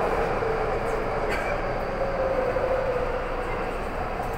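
Taipei MRT train running, heard from inside the passenger car: a steady rumble of wheels on rails with a droning tone that slowly sinks in pitch and fades a little toward the end.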